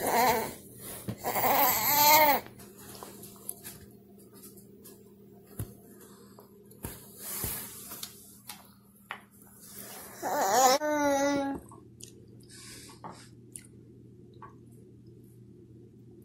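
A toddler making wordless babbling vocal sounds with gliding pitch: a short one at the start, a longer one at about two seconds, and another at about ten seconds. A few faint clicks fall between them.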